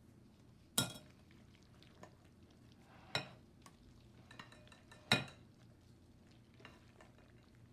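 Metal utensils clinking against a glass mixing bowl as a thick fruit salad is stirred and folded. Three sharp clinks come about two seconds apart, with softer ticks and scraping between them.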